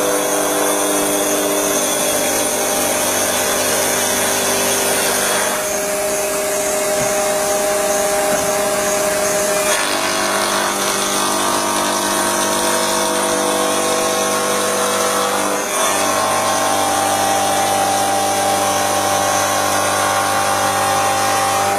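MBJ99 marble and granite edge polishing machine running, its motor-driven polishing wheel grinding along the edge of a black granite slab. The sound is a loud, steady machine whine whose pitch shifts a few times.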